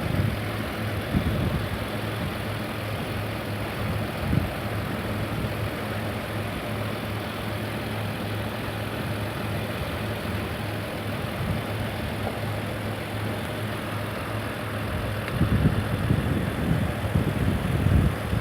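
Car engine idling steadily with one battery lead already disconnected, the engine kept running by the alternator. There are a few short knocks, and louder irregular clunks come near the end as the battery terminals are handled.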